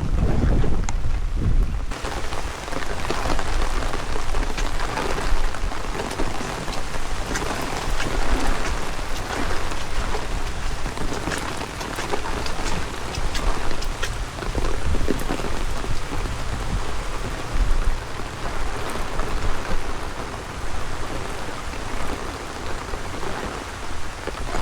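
Heavy rain falling steadily, a dense hiss full of small drop ticks. A low rumble sits under it in the first two seconds.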